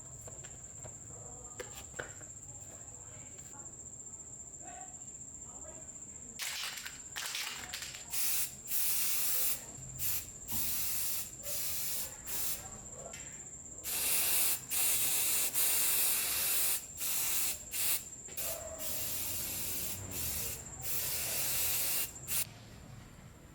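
Repeated bursts of pressurized spray hissing, some brief and some lasting a second or two, starting about six seconds in and stopping shortly before the end. A faint steady high whine runs underneath.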